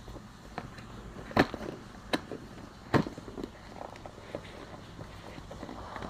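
Box contents being handled and unpacked: a handful of sharp knocks and clicks a second or so apart, the loudest about a second and a half in and another near three seconds, with light rustling in between.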